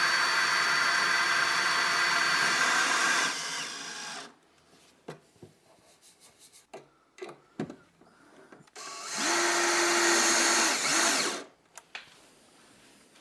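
Power drill-driver driving screws to fix concealed cabinet hinges into an overhead locker: one long run that winds down about four seconds in, then a second shorter run about nine seconds in, with light clicks of handling in between.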